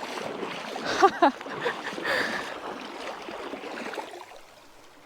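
Shallow river water splashing and rushing close to the microphone, with a brief vocal sound about a second in; the water sound fades out near the end.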